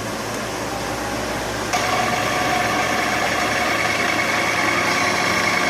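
A machine's drive running with a steady hum. About two seconds in, a louder steady whine starts as its shaft makes its timed full stroke, travelling about 19 cm in roughly four seconds.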